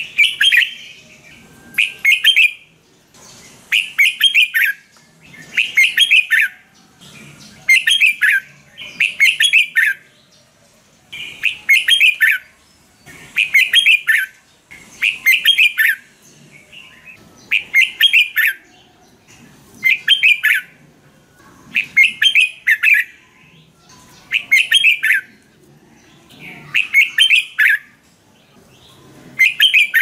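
Red-whiskered bulbul singing: short, loud bursts of quick warbled whistled notes, one every one to two seconds, each phrase ending in a falling note.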